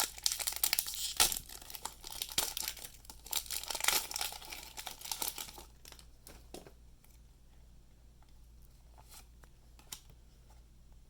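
A trading-card booster pack's foil wrapper crinkling and being torn open, then a few faint clicks as the cards are handled.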